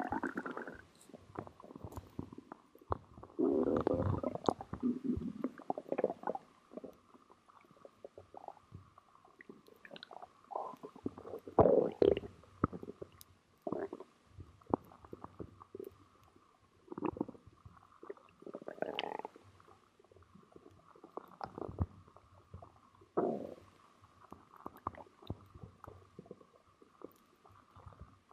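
Stomach gurgling and rumbling with cola in it: irregular gurgles come in bursts a few seconds apart, the loudest about twelve seconds in.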